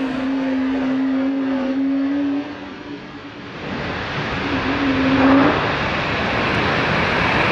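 Jet airliner engines during landing: a steady engine whine that drops away about two and a half seconds in, then a rushing roar that swells and grows louder from about halfway through.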